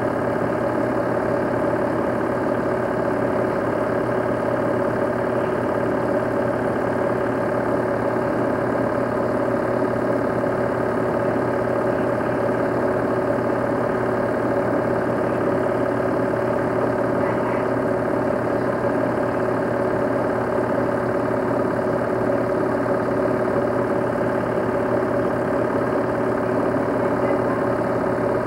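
Film projector running, a steady mechanical hum with several constant tones and no change in speed or level.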